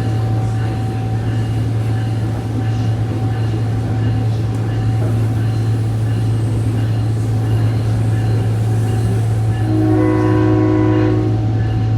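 SMART diesel railcar running with a steady low drone, heard on board. About ten seconds in, the train's horn sounds once for about a second and a half.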